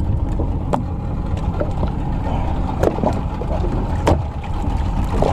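Small open fishing boat at sea: a steady low rumble with water against the hull, broken by a few sharp knocks on the boat.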